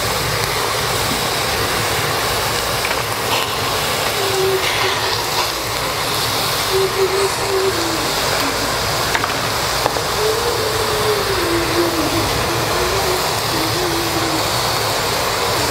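Steady rushing of a mountain stream, with a faint wavering tone that comes and goes in the background.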